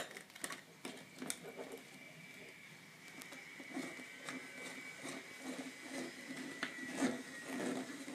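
Faint clicks and rustles of electrical wires and a junction box being handled as red conductors are joined together. A faint, thin, steady whine runs underneath.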